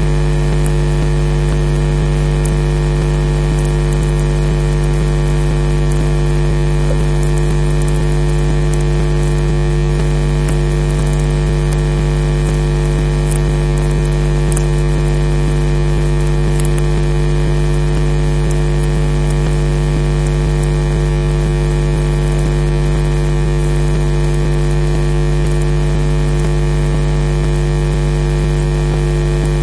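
Loud, steady electrical hum with many evenly spaced overtones over a hiss, with occasional faint crackles: interference on a nest camera's microphone feed.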